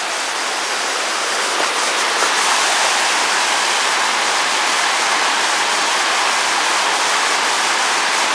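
Steady rushing of the River Lyn, a rocky moorland river tumbling over boulders and small white-water falls, getting a little louder about two seconds in.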